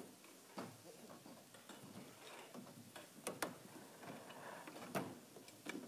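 Faint, scattered knocks and clicks of padded chairs being lifted, set down and shifted on a stage.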